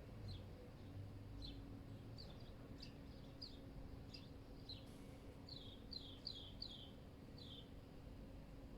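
A small bird giving short, high chirps, about a dozen of them, with a quick run of four just past the middle. They are faint, over a steady low hum.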